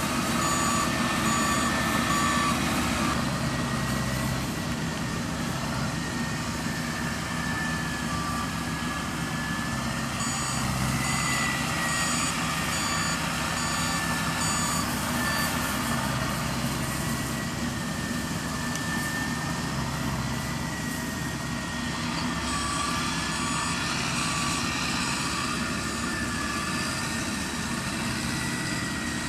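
Yanmar AW70V combine harvester's diesel engine running steadily, with a faint wavering whine. Its reversing alarm beeps in three spells of quick, evenly spaced beeps: at the start, from about ten seconds in, and again near the end.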